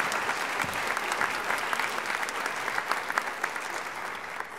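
Audience applauding, a dense patter of many hands clapping that starts to die away near the end.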